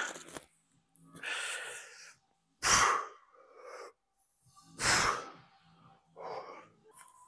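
A man breathing hard through a set of dumbbell hammer curls: two sharp, loud exhalations a little over two seconds apart, with quieter breaths before, between and after them.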